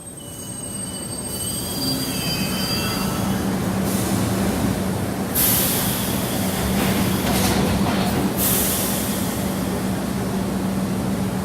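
Subway train running on the rails, fading up over the first two seconds into a steady rumble. High-pitched wheel squeal sounds early on, and a louder hiss comes in about four seconds in.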